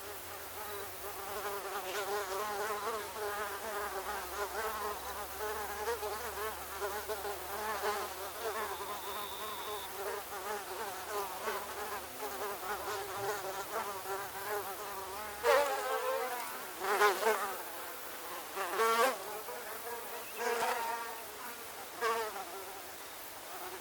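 Swarm of mosquitoes whining: many overlapping high buzzing tones that waver in pitch. In the second half, single mosquitoes pass close and louder several times.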